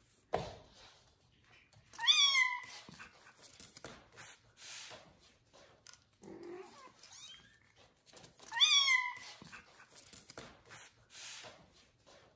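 Kitten mewing: two loud, high-pitched mews about six seconds apart, each rising then falling in pitch. Between them are softer rustles and scuffs, with a sharp thump just after the start.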